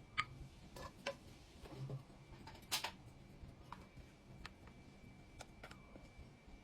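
Faint, scattered light clicks and taps, with one short, louder noisy burst about three seconds in.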